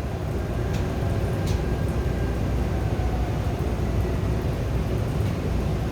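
Seoul Subway Line 5 train running, heard from inside the carriage: a steady low rumble of wheels on rail with a faint motor whine and a few light clicks.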